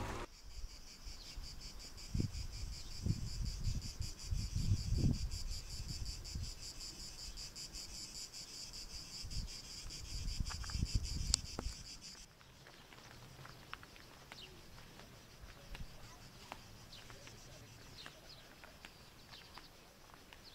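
Cicadas shrilling in a steady, finely pulsing high drone, with low rumbling thumps underneath. The drone cuts off abruptly about twelve seconds in, leaving a quieter background with faint scattered chirps.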